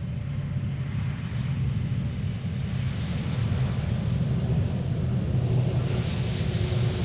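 Airbus A330-300's General Electric CF6 jet engines rumbling steadily as the airliner lands, with a hiss that grows louder over the last few seconds.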